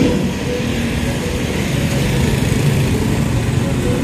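Steady engine rumble of street traffic, with small motorbike engines running close by.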